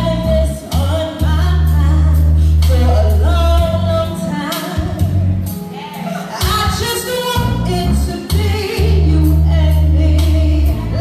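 A woman singing live into a microphone over instrumental backing with long, deep held bass notes.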